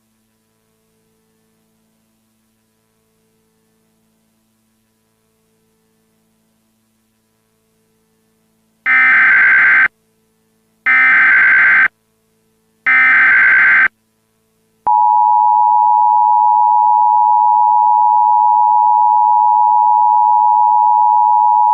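Emergency Alert System SAME header: after about nine seconds of near silence with a faint hum, three loud one-second bursts of buzzy data tones about a second apart. Then, about fifteen seconds in, the steady two-tone EAS attention signal begins.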